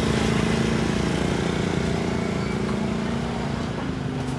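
Small motor scooter engine running close by, a steady low drone whose pitch shifts slightly near the end.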